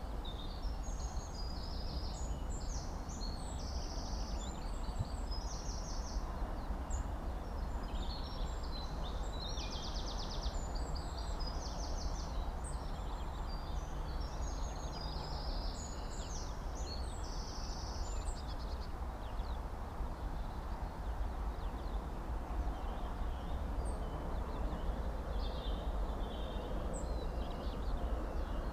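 Gulls calling over and over in short, high-pitched, chattering bursts, several at once, over a steady low background rumble.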